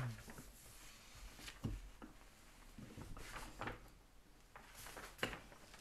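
Faint handling of a Torah scroll on a cloth-covered table: a few soft knocks from its wooden rollers, with light rustling of parchment and a cloth binder.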